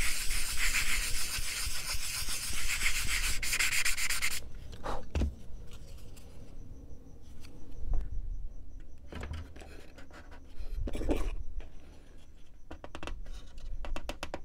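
Hand sanding block rubbed rapidly back and forth along the edge of a small wooden wing rib for about four seconds. After that the rib is pushed into a balsa wing frame to test the fit, with quieter rubbing and a few soft knocks of wood on wood.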